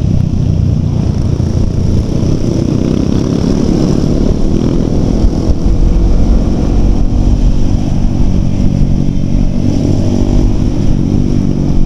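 Motorcycle engines running at riding speed in a group ride, the engine note climbing in places as they accelerate, with wind buffeting on the rider's microphone.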